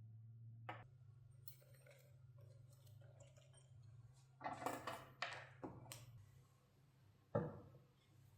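A few light clicks and knocks of small objects being handled and set down, with a cluster just past the middle and the loudest, sharpest knock near the end, over a steady low hum.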